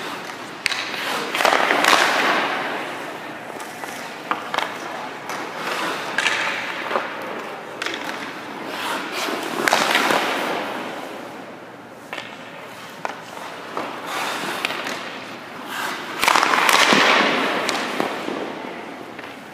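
Hockey skate blades and goalie pads scraping the ice in several long swishes as the goaltender pushes and slides across the crease, loudest about 2, 10 and 17 seconds in. Sharp clacks of stick and puck against pads and ice come in between.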